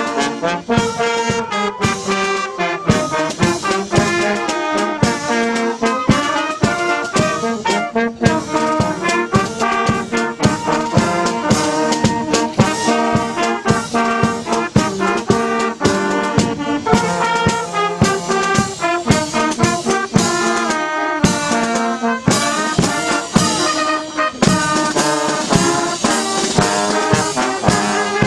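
Brass band playing a tune, with trombones and other brass carrying the melody alongside a flute, over a steady beat with cymbal clashes.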